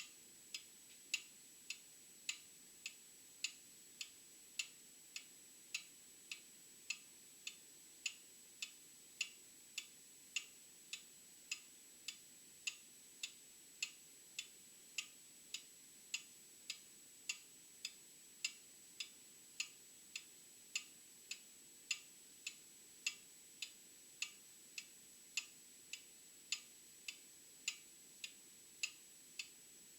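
An old mechanical clock ticking steadily, a little under two ticks a second, some strokes louder than others.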